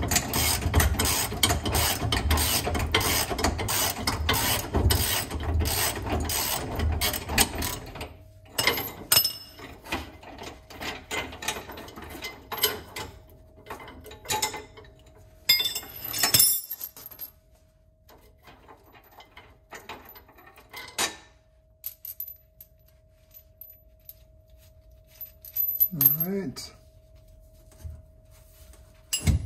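Socket ratchet clicking rapidly for about eight seconds as it loosens the last bolt holding a trailer axle. Scattered clicks and metal taps from the wrench and bolt follow.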